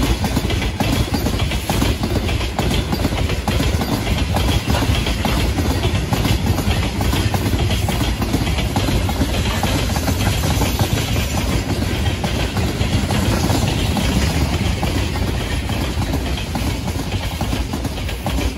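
Freight train wagons rolling past: a loud, steady rumble dense with the knocks of wheels on the rails.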